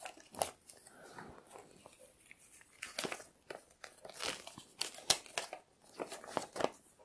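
Paper rustling and crinkling as folded printed leaflets are handled and unfolded, in short irregular crackles that come more often in the second half.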